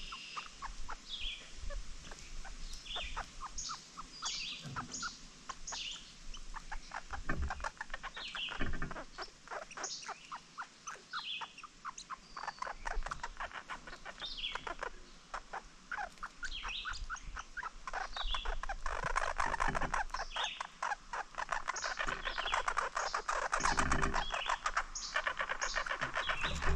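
Small birds chirping over and over in short falling notes, joined from a few seconds in by a rapid dry clicking from a red squirrel cracking sunflower seed shells at the feeder beside the microphone, thickest in the second half. A few dull knocks come in between.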